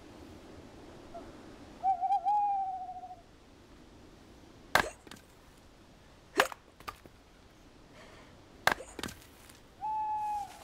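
Three sharp axe chops into wood, the strokes about one and a half to two seconds apart. An owl hoots before the chops and again near the end: a wavering hoot that settles into a steady note, and later a shorter one.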